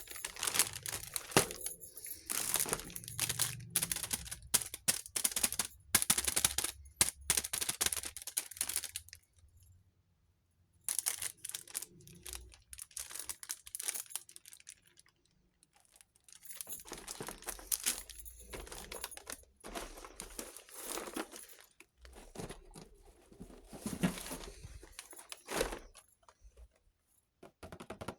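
Packaging being handled while a miniature toy kitchen set is unboxed: crinkling and tearing in bursts, with short pauses.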